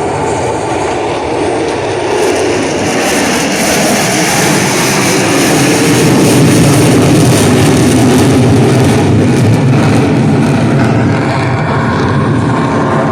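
Jet roar of an F/A-18 Super Hornet making a pass, swelling to its loudest about halfway through and easing off near the end.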